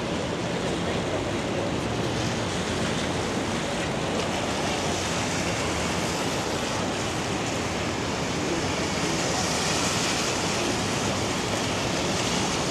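Steady hiss of rain and of car tyres on a wet city street, with traffic passing. The hiss swells a little about nine to ten seconds in.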